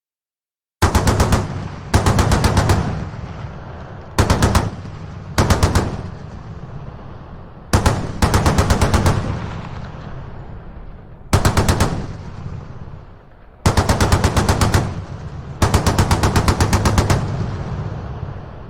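Browning M2 .50-calibre heavy machine gun firing eight short bursts of rapid shots, each burst trailing off in a long rolling echo.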